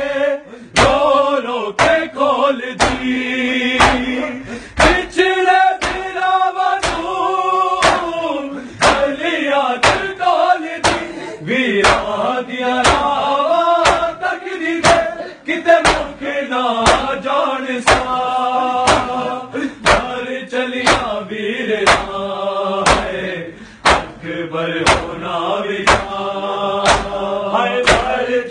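Men's voices chanting a noha (a mourning lament) together over a steady rhythm of sharp open-hand slaps as they beat their bare chests in matam.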